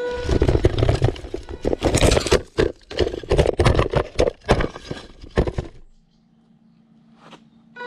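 Small robot rover tumbling down a steep dirt slope: a dense run of knocks and clattering as its plastic box body hits earth, sticks and stones. About six seconds in it comes to rest, and only a low steady hum is left.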